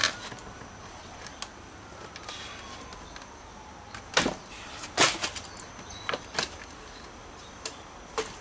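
Sharp knocks and clacks of the side panels of an oiled block mold being worked loose and pulled off a cast aircrete block, loudest about five seconds in, with others near four, six and eight seconds.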